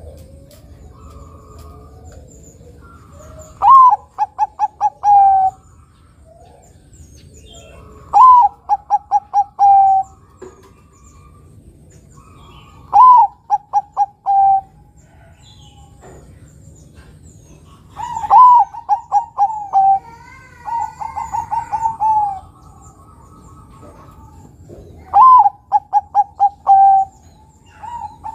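Zebra dove (Bangkok perkutut) cooing in repeated phrases every four to five seconds. Each phrase opens with one higher note, then runs into a quick string of short clipped notes and ends on a longer falling note. There are six phrases, the fifth softer than the rest.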